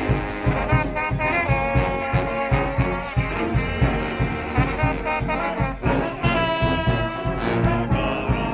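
Street brass band playing: several horns sounding held and moving notes together over a steady drum beat.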